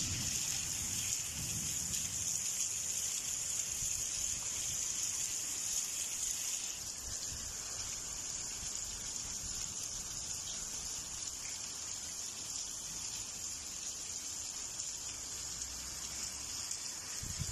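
Steady rain falling in a thunderstorm: an even hiss of drops, easing slightly about seven seconds in.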